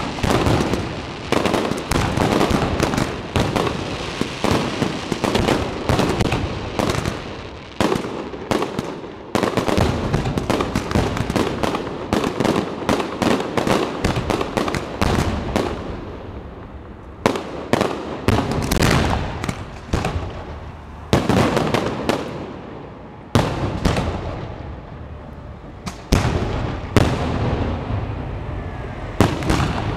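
Fireworks display: a dense, rapid barrage of aerial shell bursts and bangs. After about halfway it thins into separate loud bangs with short quieter gaps between them.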